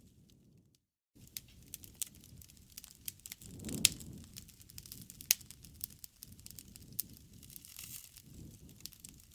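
Bonfire burning: wood crackling with irregular sharp pops, the loudest just under four seconds in, over a low rumble of flames. The sound drops out briefly about a second in.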